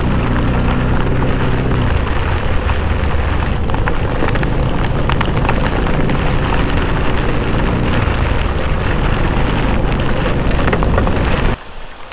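A vehicle engine running, its pitch shifting, under a steady rush of wind and rain noise. It cuts off abruptly about eleven and a half seconds in, leaving softer rain.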